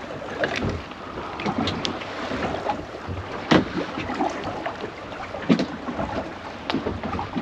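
Wind and water noise around a small boat at sea, with wind buffeting the microphone, broken by irregular knocks and clicks as a small dogfish is unhooked with pliers on deck. The sharpest knocks come about halfway through and again a couple of seconds later.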